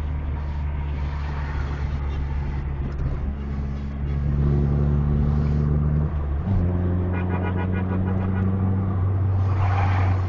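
Intercity bus diesel engine running at steady revs under way, a deep drone that jumps to a different steady pitch about six and a half seconds in.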